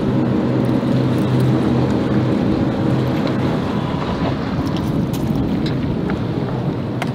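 Motorboat engine drone: a steady hum that fades over the first few seconds. Wind rushes across the microphone under it, with a few light knocks later on.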